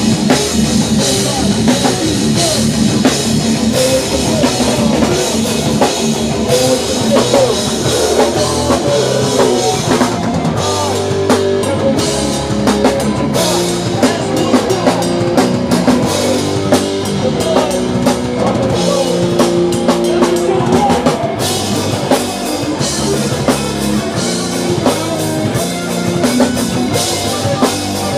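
Live heavy rock band playing at full volume: a pounding drum kit with bass drum and cymbals under electric guitars and bass.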